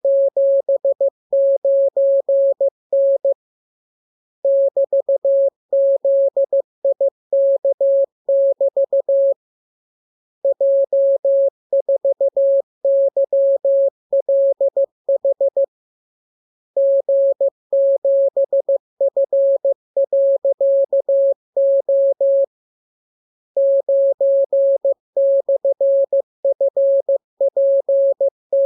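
Morse code keyed as a single steady tone of dots and dashes, sent in runs of several seconds with about a second's pause between them. This is a practice radiogram of mixed letters, numbers and punctuation signs for learning to copy by ear.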